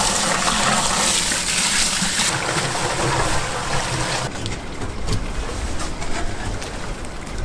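Contents gushing out of an opened steel tank fuel tank as it is emptied: a strong rushing pour for about four seconds, then a weaker trickle with a few small knocks.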